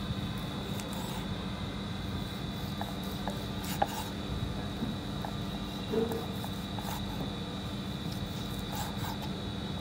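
A large kitchen knife slicing cooked pig vagina on a wooden chopping board: soft cutting and rubbing strokes with scattered clicks of the blade meeting the board, the sharpest nearly four seconds in and a duller knock about two seconds later. A steady hum and a high-pitched whine run underneath.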